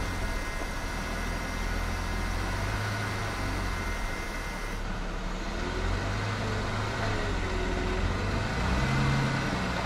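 Jeep driving on a dirt road: a steady low engine and road rumble.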